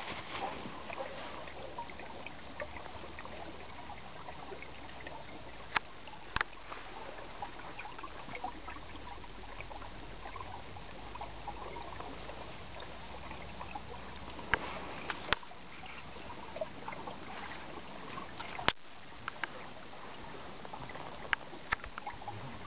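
A frozen river: a steady trickle and gurgle of water under the ice, broken by a handful of single sharp clicks and pops.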